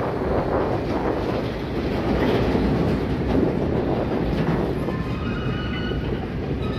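Freight train of tank wagons rolling past at close range, its wheels on the rails making a steady noise. About five seconds in, thin high squealing tones from the wheels start up.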